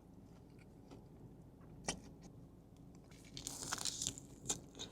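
Crunching bites and chewing of a crispy potato-coated Korean corn dog: a single sharp crunch about two seconds in, then a longer spell of crunching near the end.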